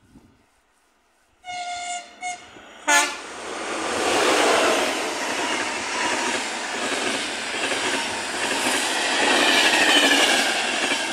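A locomotive's horn sounds three short blasts, the last one loudest. The locomotive-hauled passenger train then runs through at speed, with loud rumbling and wheels clattering on the rails, and a thin wheel squeal near the end.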